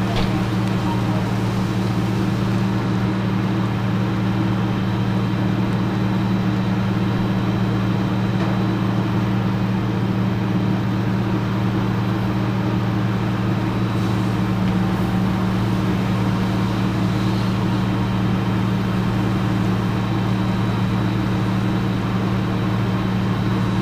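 Fire engine's diesel engine running at a constant high speed to drive its pump, supplying water to the hose line: a loud, unbroken drone that holds one pitch.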